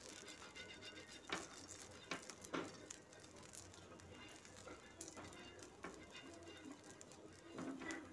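Faint scrapes and light taps of a plastic spoon spreading oil across an iron dosa griddle, as a handful of separate short strokes.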